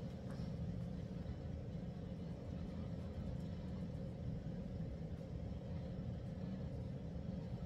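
Steady low rumble of room noise with no distinct events.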